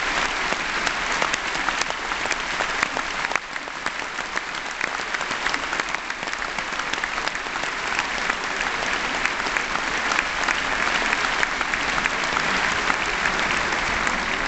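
Large arena audience applauding steadily, dense clapping that dips a little a few seconds in and then builds again.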